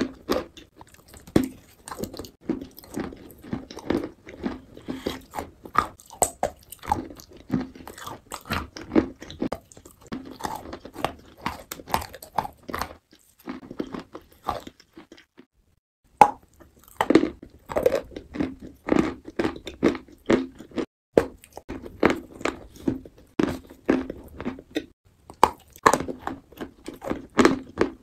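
Close-up chewing and biting of a crumbly white block: crisp crunches several times a second, with a pause of a couple of seconds around the middle.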